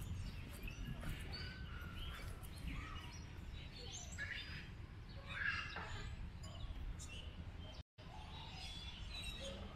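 Birds chirping in scattered short calls over a steady low background rumble. The sound cuts out for a moment about eight seconds in.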